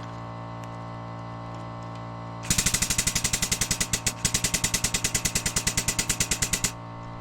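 Air-powered grease gun rattling rapidly, about ten strokes a second, in a run of about four seconds starting some two and a half seconds in, while pumping grease into a fitting. Under it an air compressor runs with a steady, loud hum.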